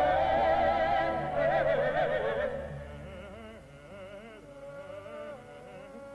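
Closing music: a sustained melody with a strongly wavering, vibrato-laden line, loud at first and fading down about two and a half seconds in, continuing more quietly.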